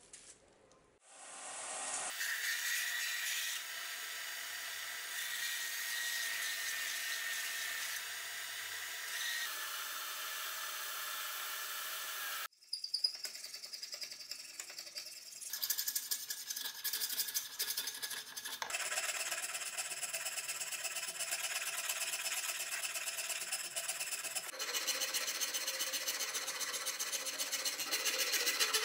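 A hand file rasping back and forth across the chestnut-wood handle of a cleaver clamped in a vise, in fast even strokes. It breaks off briefly about halfway.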